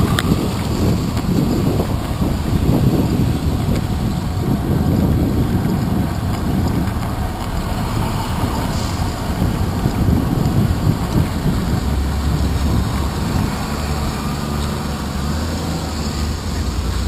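Wind buffeting a bicycle's handlebar-mounted action camera while riding on wet city streets, with a steady low rumble of road noise and motor traffic alongside. The low hum grows steadier in the last few seconds.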